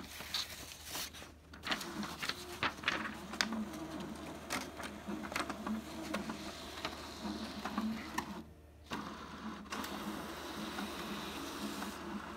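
Epson XP-8500 inkjet printer running: the paper feed and print-head carriage click and whir as it prints a print-head alignment pattern. It pauses briefly a little after eight seconds, then runs on with a steadier whir.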